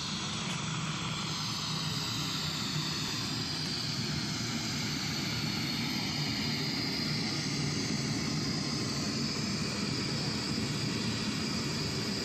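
Gas burner firing into a small homemade metal-melting furnace, a steady, even rushing noise with no let-up, as it heats the crucible to melt aluminium.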